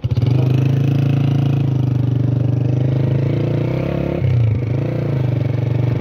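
Motorcycle engine running steadily as the bike rides off, its note dropping briefly about four seconds in and then picking up again.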